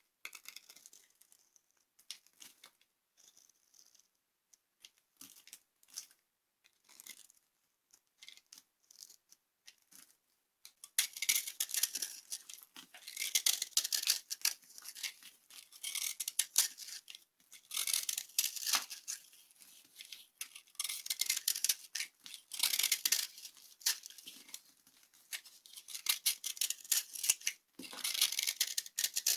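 Dry soap being crushed and broken up, crunching and crackling. Only scattered small crackles at first, then dense, louder crunching from about eleven seconds in, coming in waves.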